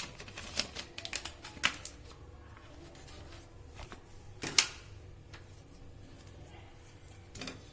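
Irregular clicks and taps of a spoon against a kadhai as khoya is added to hot ghee and stirred, the loudest tap about four and a half seconds in.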